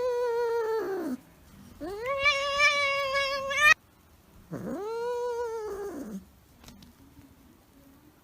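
Domestic cat giving three long, drawn-out yowling meows. The first is already sounding at the start and drops in pitch as it ends, the second rises, wavers and stops abruptly, and the third rises and falls in an arch.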